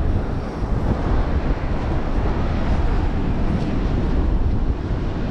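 Strong wind buffeting the microphone on an open beach: a dense, steady low rumble.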